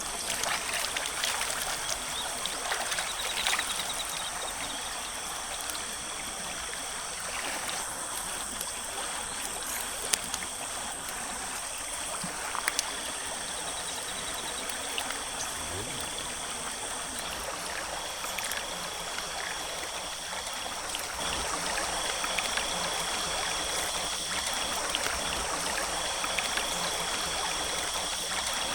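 Forest stream flowing steadily over stones, with a thin, steady high-pitched tone and a broken higher one above the water, and a couple of sharp clicks near the middle.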